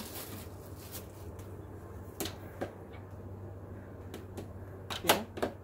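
Hard plastic vacuum parts being handled and fitted together: scattered light clicks and knocks, with a louder clatter about five seconds in.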